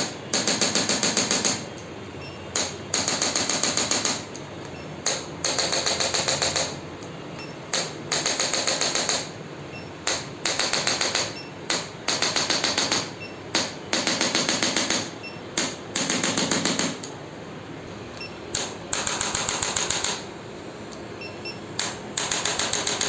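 Bursts of rapid mechanical tapping, each about a second to a second and a half long, repeated with short pauses throughout.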